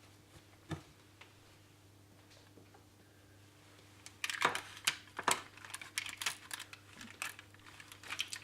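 One sharp click about a second in. From about four seconds in comes a dense, irregular run of sharp clicks and crackles as spiced nuts are handled and broken up in a mixing bowl.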